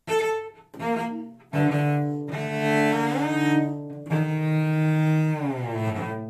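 Solo cello, bowed: two short notes, then two long held notes, the first bending upward partway through and the second sliding downward near the end and left ringing. The passage imitates a chorus of croaking frogs.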